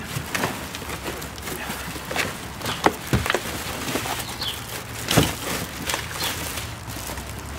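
Plastic wrapping crinkling and a cardboard box rustling and knocking as plastic-wrapped rollator walker parts are pulled out of it, with irregular sharp clicks and scrapes. A bird chirps once about halfway through.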